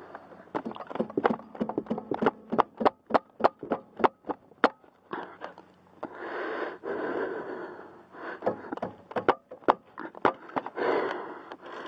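Hand ratchet clicking in quick runs of sharp ticks while a bolt on a car's rear brake caliper is turned out by hand, with scraping and rustling of the tool and hands between the runs.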